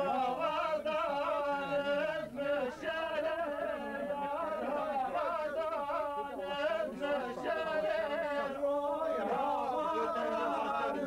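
A man singing unaccompanied, a slow song of long, wavering held notes.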